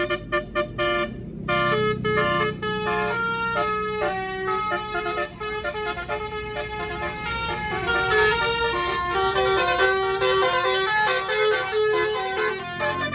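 Tour bus's basuri telolet horn: a rapid string of short toots, then from about a second and a half in it plays a melody of stepping notes, over the low rumble of the bus engine.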